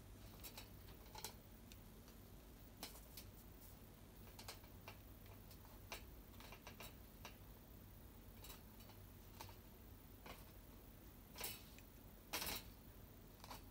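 Wooden chopsticks clicking and tapping against shiitake caps and a wire-mesh grill tray as the mushrooms are moved about: faint, irregular light ticks, with two louder knocks near the end.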